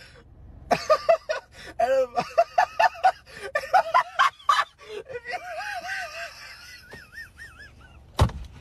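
A man laughing uncontrollably: rapid bursts of loud laughter, breaking into a high, quavering wheeze of a laugh. A sharp knock comes near the end.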